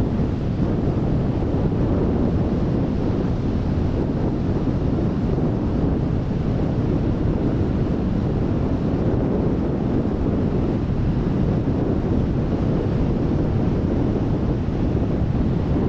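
Wind blowing on the microphone over the waves of a rough sea: a steady noise, heaviest in the low end, with no let-up.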